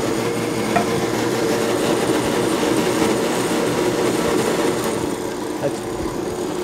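Countertop electric blender running on low, its motor giving a steady hum while it churns chopped pineapple and simple syrup into a thick purée.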